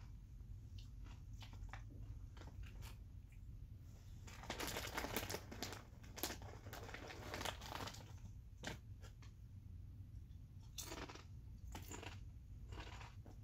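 Potato chips being crunched and the chip bag crinkling: scattered sharp crunches, with a dense stretch of crackling from about four and a half to eight seconds in.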